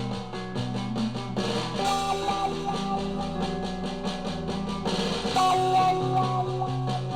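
Guitar rock song with drums playing through an Ultimate Ears WONDERBOOM 3 portable Bluetooth speaker, picked up by a microphone in the room; the bass line and texture shift about two seconds in and again about five and a half seconds in.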